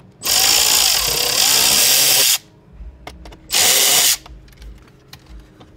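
Cordless power ratchet running in two bursts, a long one of about two seconds and then a short one, backing out a 7mm bolt on the dashboard trim.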